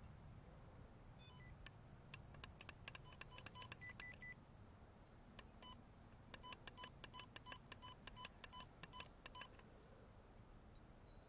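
Faint electronic key beeps from a walkie-talkie as its buttons are pressed. A short falling run of tones comes just over a second in, then a cluster of beeps with button clicks. From about five and a half to nine and a half seconds there is a steady string of beeps, about three a second, as the volume is stepped up and the channel is set.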